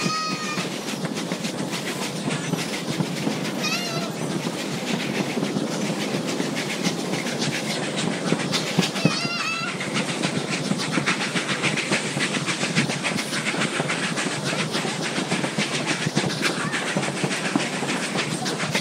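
Steady running noise of a narrow gauge passenger train heard from aboard: the cars rumble and rattle and the wheels click over the rails. Three short, high, wavering squeals cut through, at the start, about four seconds in and about nine seconds in.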